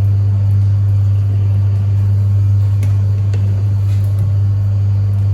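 A loud, steady low hum that does not change, with a few faint light clicks about three to four seconds in.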